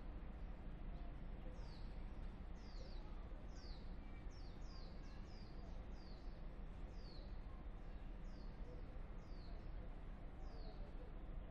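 A small bird calling repeatedly with short, high, downward-sliding chirps, about one or two a second at uneven spacing, over a steady low background rumble.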